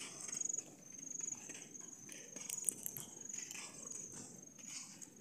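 Faint footsteps on a dirt road, with an insect chirping high and over and over, about twice a second.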